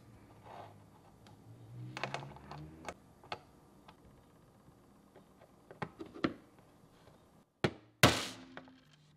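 Small metal RC axle parts, a bearing, hex hub and aluminium portal cover, clicking and tapping as they are handled and set down on a work mat. Near the end a sharp knock, then a loud brief swish of a cloth being swung that trails off quickly.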